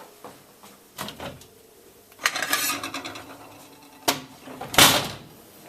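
Kitchen clatter while fetching a plate: a couple of light knocks, a rumbling scrape about two seconds in, and a loud knock near the end.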